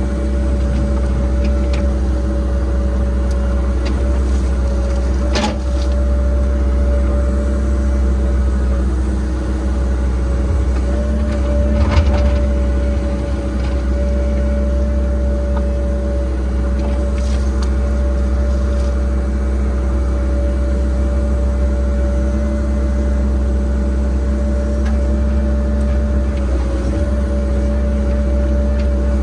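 Cat 306 excavator's diesel engine running steadily under work, with a steady whine over it and a couple of sharp knocks, the louder one about twelve seconds in.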